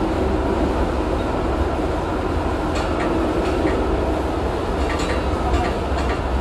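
Interurban tram running along street track, heard from the driver's cab: a steady rumble with a low hum, and a few sharp clicks in the second half.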